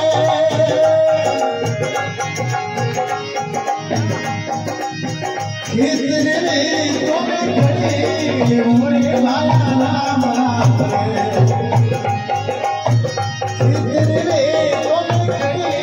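Live, amplified devotional bhajan music: harmonium with a hand-drum beat, and a man singing from about six seconds in.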